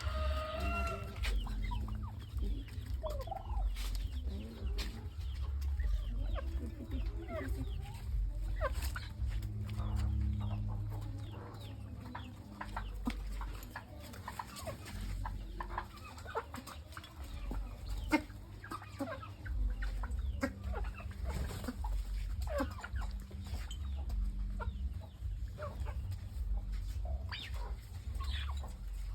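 Chickens clucking: many short scattered calls over a steady low rumble.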